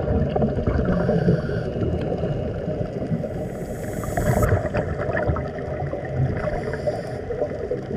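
Underwater recording of air bubbling and gurgling from helmet divers' air-fed diving helmets: a dense, steady, low rumbling churn.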